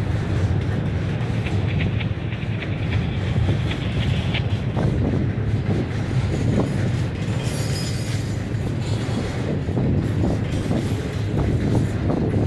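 Double-stack intermodal freight train's well cars rolling past in a steady rumble, with wheels clacking over rail joints and rattling. There is a brief high hiss or squeal about eight seconds in.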